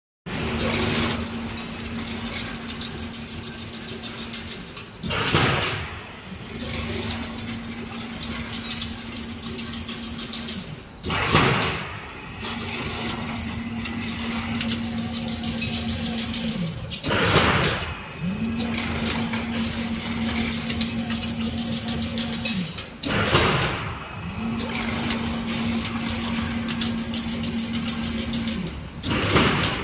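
Automatic double-wire chain link fence weaving machine running. A steady motor hum with fast, fine clatter is broken about every six seconds by a short, louder surge, after which the hum starts again.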